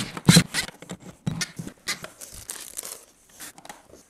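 Irregular rustling and scraping handling noises from gloved hands working at a wall receptacle, in several short bursts with the loudest about a third of a second in.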